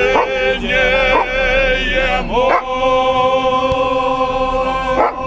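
A group of people singing together; a long note is held from about halfway through until near the end.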